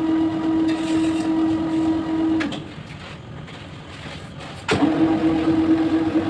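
A small electric motor running with a steady hum. It winds down and stops about two and a half seconds in, then starts again about two seconds later.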